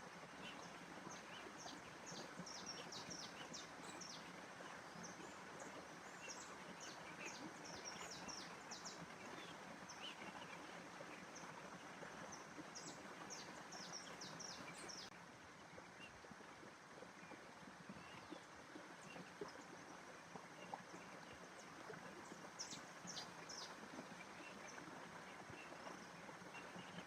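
Faint outdoor nature ambience: a steady, soft hiss under clusters of short, high bird chirps that come in bursts of a few seconds, with gaps between them.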